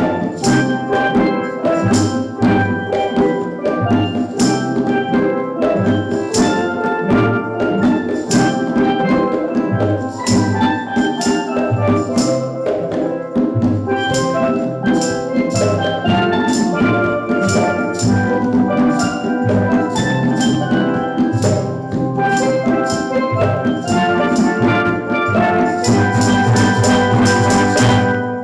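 Steel drum band playing an upbeat tune, the pans' ringing notes over a steady beat of drums and cymbals; the music stops abruptly at the end.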